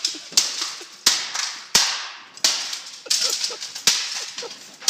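A fax machine being smashed with heavy blows: six sharp cracks of plastic and metal, spaced about two-thirds of a second apart, each one ringing briefly.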